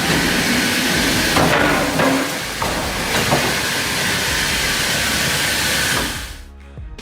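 Loud, steady rushing machine noise with a few sharp knocks, fading out about six seconds in.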